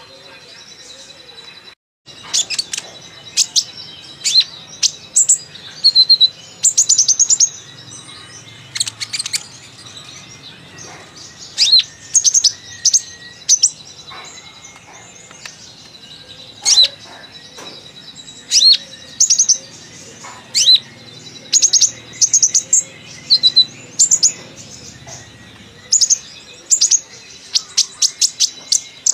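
Kolibri ninja sunbird singing busily: repeated bursts of sharp, high chirps and quick trills with varied phrases, as the bird brings out its mimicked song.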